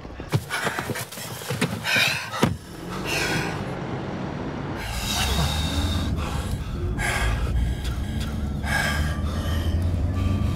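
Steady low rumble of a car cabin on the move, setting in about five seconds in, with gasping breaths over it; a quick run of clicks and knocks in the first couple of seconds.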